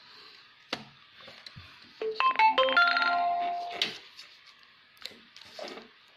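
A phone's electronic alert tune: a quick run of clean notes stepping in pitch for about two seconds, then fading. Around it, faint taps of a plastic ruler being set down on paper.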